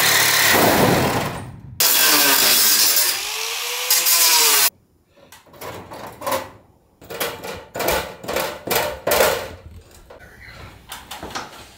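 Power saw cutting through the box truck's roof to open the hole for a roof fan, its motor whine rising and falling as it cuts, with a short break before it carries on. It stops abruptly about five seconds in, and a run of separate knocks and clatters follows.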